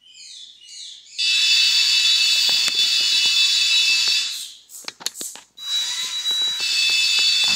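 Warning buzzer on a modified Elegoo robot car, sounding a loud, steady, high buzz that signals the robot is driving forward. It starts about a second in, breaks off for about a second near the middle and comes back, with scattered clicks beneath.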